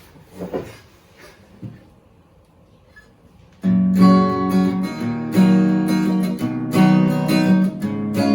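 Faint handling knocks and rubs, then an acoustic guitar starts strumming chords about three and a half seconds in and keeps on strumming.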